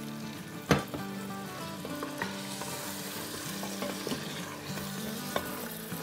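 Mutton pieces sizzling in oil and masala in the stainless-steel inner pot of an Instant Pot on sauté mode, while a wooden spatula stirs and scrapes them. This is the bhuna stage, where the meat is browned with small splashes of water. There is a sharp knock about a second in.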